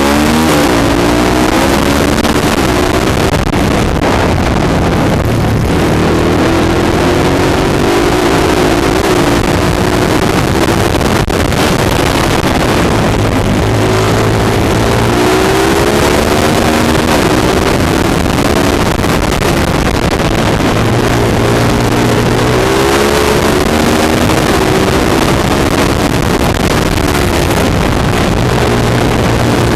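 Small dirt bike engine heard from on board, revving up and backing off again and again as the bike laps a flat track, with steady wind rush over the microphone.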